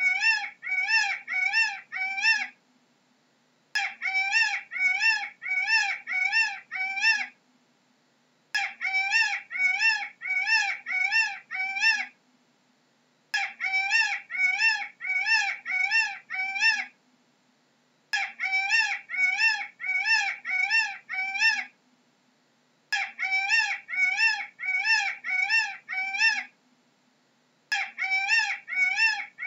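Peacock (Indian peafowl) calling: bouts of six or seven short calls, each bending up and down in pitch, about two a second. Each bout lasts about three and a half seconds and the same bout comes back about every five seconds, six times over a faint steady hum.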